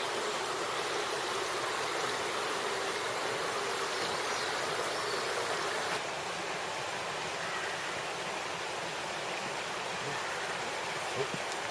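Steady rushing of a river running fast over rocks in a gorge, a continuous even noise that steps down slightly in level about six seconds in.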